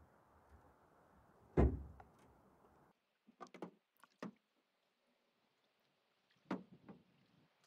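A canoe being paddled: one loud thump against the canoe about a second and a half in, then a few scattered light knocks and splashes of paddle strokes.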